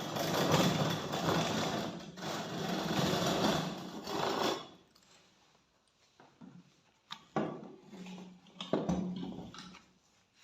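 Harsh scraping on rusty metal parts during rust removal: one long stretch of about four and a half seconds, then several shorter strokes in the second half.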